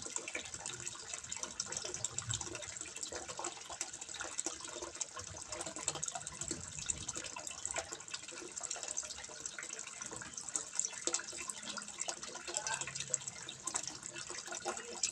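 Water trickling and splashing steadily into a fish pond, a continuous patter of small drips and splashes.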